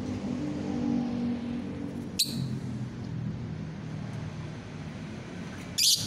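Lovebird giving two short, sharp, high-pitched shrieks, about three and a half seconds apart, the second louder, over a steady low hum like a nearby engine.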